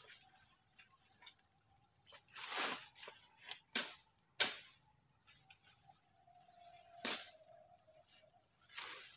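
Steady high-pitched drone of insects, with rustling and a few sharp snaps as brush and branches are pulled and cleared by hand.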